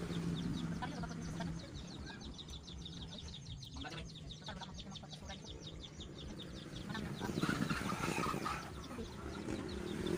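Chickens clucking, over a rapid, even, high-pitched chirping of about seven pulses a second, with a louder spell of clucking near the end.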